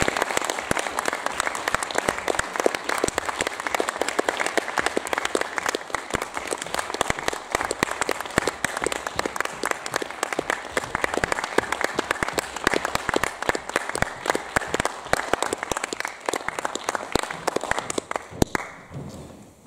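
Audience applauding: a dense run of hand-clapping that thins out and stops shortly before the end.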